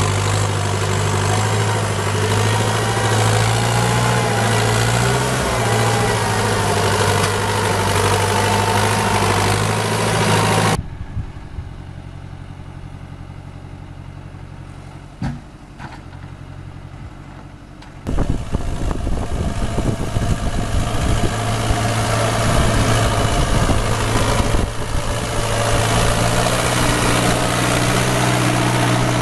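Tractor engine running hard as it hauls a loaded log trailer through deep mud. About ten seconds in, the sound drops to a quieter, more distant engine. Near eighteen seconds a loud engine returns, with tyres churning in mud.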